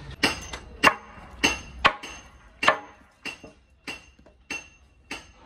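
Hammer blows on steel, struck in a steady rhythm of about one and a half a second, each with a short metallic ring. The first few strikes are the loudest, and the later ones are lighter.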